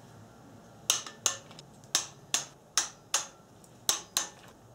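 Torque wrench clicking as cylinder head bolts are drawn down to 7.4 ft-lb in sequence: about eight sharp single clicks at uneven intervals, each marking the wrench's set torque reached.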